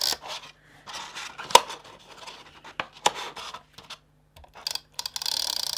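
Handheld double-sided tape runner rasping as it is drawn along paper box tabs, briefly at the very start and again for under a second near the end. In between come sharp clicks and the rustle of card being handled, the loudest click about a second and a half in.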